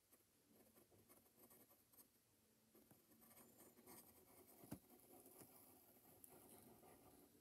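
Faint scratching of a wooden pencil drawing short strokes on paper, with one sharper tap a little past the middle.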